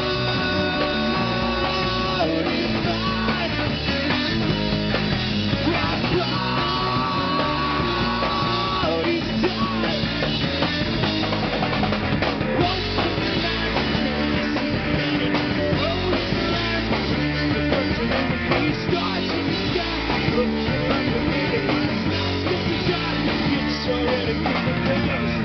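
Punk rock band playing live: drum kit, electric guitar and singing, loud and dense throughout.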